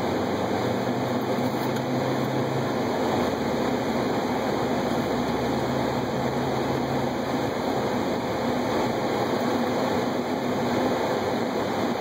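In-cabin driving noise of a 2012 Subaru WRX on a snow-covered road: steady tyre and road rumble from its General Altimax snow tires, with the engine running underneath. A low engine hum comes up twice for a couple of seconds.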